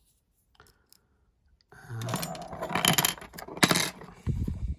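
Small metal parts of an antique mortice lock cylinder clinking and scraping against each other as the cylinder is handled, with several sharp clicks, then a short low thump near the end.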